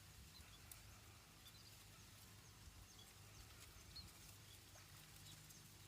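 Near silence: faint, scattered short high bird chirps over a low steady hum.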